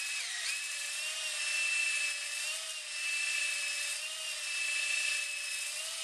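Cordless drill running steadily, spinning a flexible ball-type glaze-busting hone inside a Land Rover 300Tdi cylinder bore to deglaze the bore wall. It makes a steady motor whine over a hiss, with slight dips in pitch every second or two.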